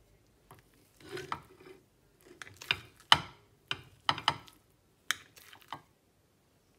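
Metal knife cutting and scooping ugali in a ceramic bowl, the blade clicking and scraping against the bowl in irregular strokes, the sharpest about three seconds in.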